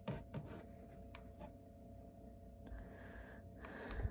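Quiet room tone with a steady faint hum, a few scattered soft clicks, and brief soft rustles near the end.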